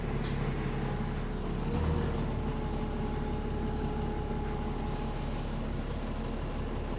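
Bus engine running steadily, with a rapid low pulsing from an exhaust leak and a brief swell about two seconds in.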